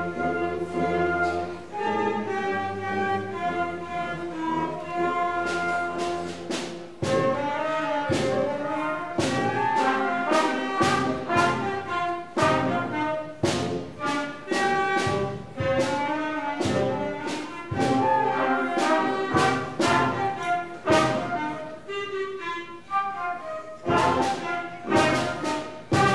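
A school concert band of brass and saxophones playing a piece together, with held chords at first. About seven seconds in, a strong steady beat comes in under the melody.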